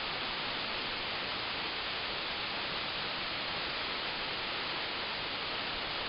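Tall waterfall pouring down a rock cliff face: a steady, even hiss of falling water.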